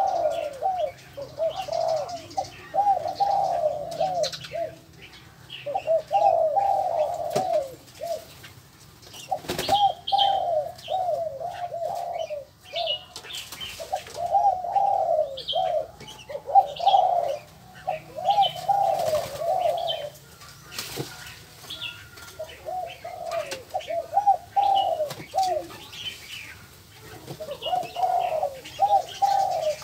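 Doves cooing in repeated phrases of quick, rolling notes, one phrase every second or two, with smaller birds chirping briefly above them.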